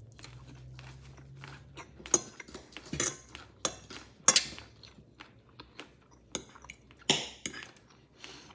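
A metal fork clinking and scraping against a plate during a meal, in scattered sharp clinks. The loudest come about four seconds in and about seven seconds in.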